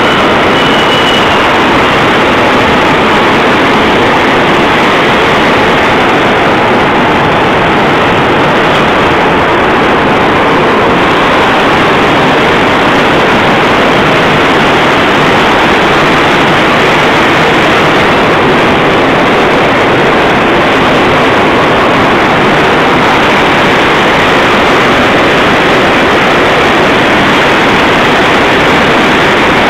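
Machinery of a steel section rolling mill running as hot bar passes through: a loud, steady industrial din with no single event standing out.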